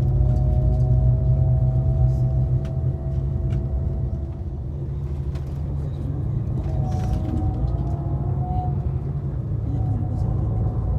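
Steady low rumble of a moving vehicle heard from inside the cabin, with a faint steady whine above it.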